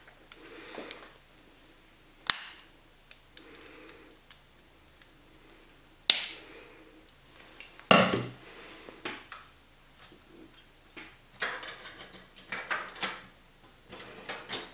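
Sharp clicks and knocks of parts and screws being handled on a computer case: three loud snaps about two, six and eight seconds in, then a run of smaller clatters near the end.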